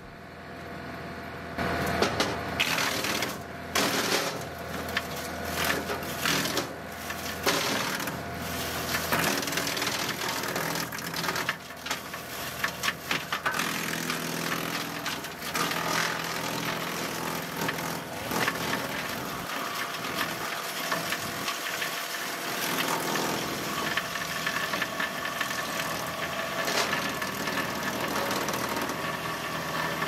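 Frontier WC1105 PTO wood chipper, driven by a John Deere 2038R compact tractor, running and chewing up hand-fed branches. Repeated cracks and knocks of wood start about a second and a half in, over the steady drone of the tractor engine and chipper. Its discharge chute has clogged and stopped throwing chips.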